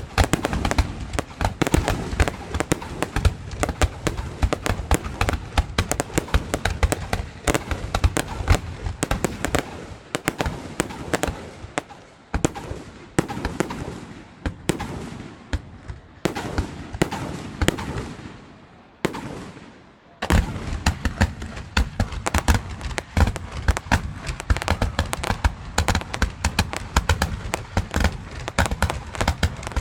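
Fireworks going off: a rapid, overlapping barrage of bangs and crackles. The bursts thin out with short gaps in the middle, then a dense barrage resumes about two-thirds in.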